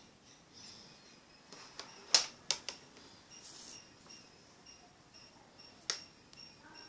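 A few sharp plastic clicks and taps from handling an opened smartphone, the loudest about two seconds in, a quick pair just after, and another near six seconds. Crickets chirp faintly in the background throughout.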